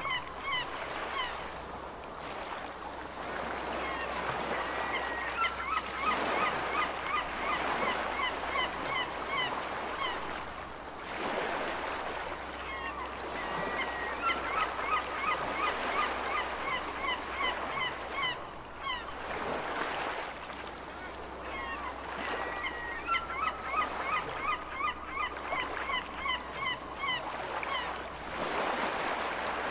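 Gulls calling in quick series of short, repeated calls, in bouts of several seconds that come back about every nine seconds, over a steady wash of sea waves.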